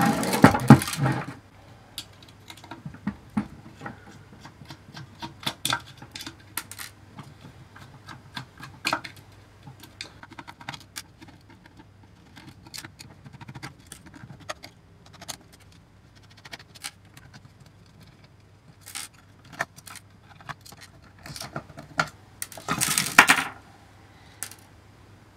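Small steel screws being undone from a metal avionics case and set down on a wooden tabletop: irregular light metallic clicks and clinks. There is louder handling clatter at the start, and again about 23 seconds in as the cover is pulled off the box.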